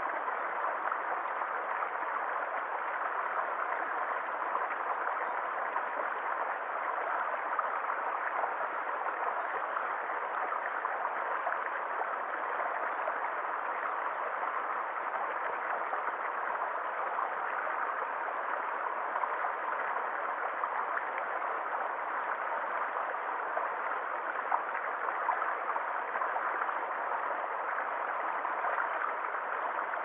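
Small rocky stream flowing, water splashing steadily over a low cascade between boulders.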